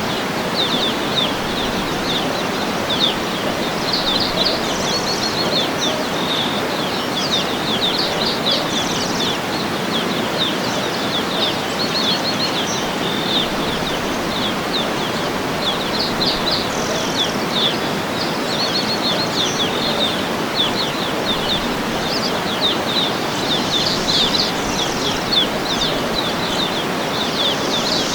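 A waterfall rushing steadily, with small birds chirping in quick high twitters throughout.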